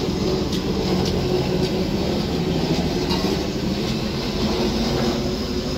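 A 5–6 tonne double-drum road roller compacting an aggregate base, its engine running with a steady low rumble.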